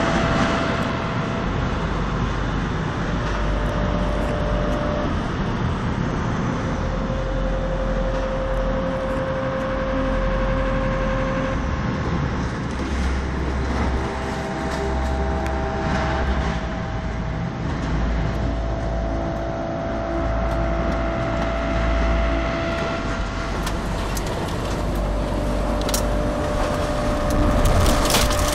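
Storm wind blowing hard in a continuous rush with a heavy low rumble. In the last few seconds, sharp clicks of precipitation strike window glass.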